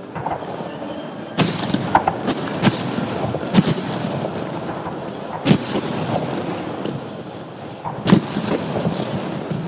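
Fireworks display: aerial shells bursting in a run of sharp, loud bangs spread over several seconds, with continuous crackling between them. A thin whistle sounds in the first second.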